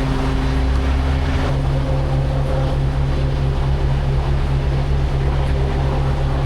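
Semi-truck's diesel engine running steadily, a low drone with a few held tones that shift slightly about one and a half seconds in.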